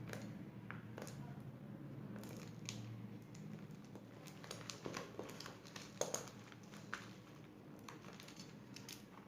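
Cable packaging handled by hand: scattered crinkling and small clicks, with a couple of sharper clicks about six and seven seconds in.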